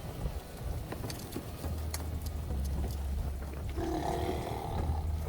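John Deere 7320 tractor's six-cylinder diesel running under load with a 468 round baler working behind it, a steady low rumble with scattered sharp clicks. A short pitched sound, voice-like, comes in about four seconds in.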